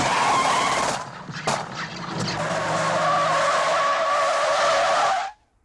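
Car tyres screeching in a long skid over engine noise, a film sound effect. It dips briefly about a second in, then screeches again and cuts off abruptly near the end.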